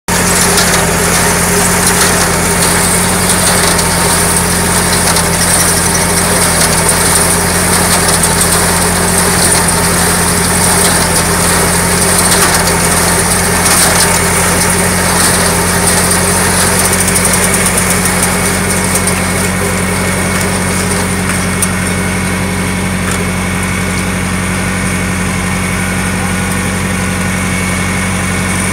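Tractor engine running steadily, with a New Holland 273 square baler clattering behind it. The busier clatter eases about two-thirds of the way through, leaving a steadier engine run.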